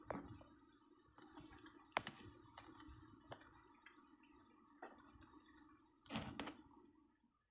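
Near silence with scattered faint clicks and ticks at irregular intervals, a small cluster of them about six seconds in, over a low steady hum.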